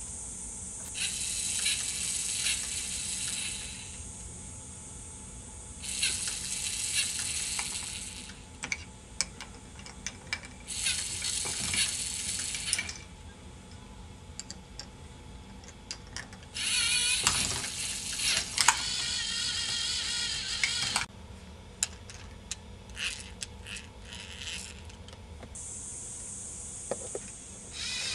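LEGO NXT servo motor whirring through the K'NEX gearing in four bursts of two to four seconds each, switched on by the NXT ultrasonic distance sensor whenever something comes close to it. Sharp clicks and rattles of K'NEX parts come in between the bursts.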